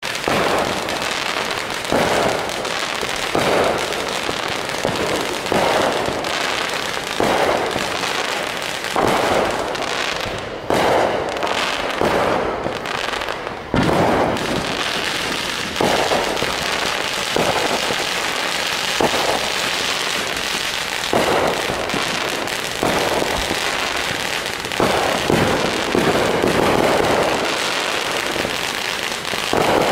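Multi-shot consumer firework cake firing a rapid series of shots, one bang about every one to two seconds over continuous crackling and hissing.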